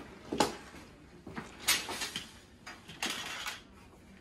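Metal hospital bed frame with a wire spring deck being lowered from upright onto the floor. It gives three clanks with rattling, roughly a second and a half apart.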